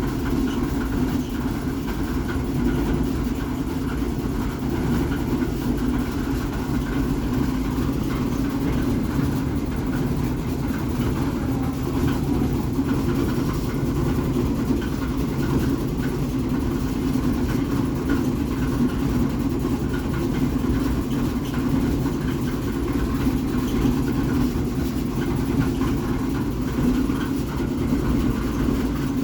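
A loud, steady low drone that holds unchanged throughout, with no breaks or separate sounds, like a heavy engine or machine running.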